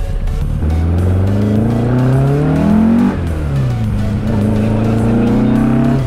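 VW Beetle's 2.7-litre Type 4 air-cooled flat-four engine and exhaust, heard from inside the cabin, accelerating away. The revs climb for about two seconds and drop sharply at a gear change about three seconds in, then climb again in the next gear.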